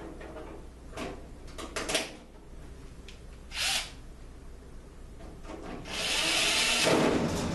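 Power drill-driver running for about a second and a half near the end, driving a screw that fastens a magnet catch to the steel cabinet panel. Before it come a few short clicks and a brief burst of noise as the screw is set.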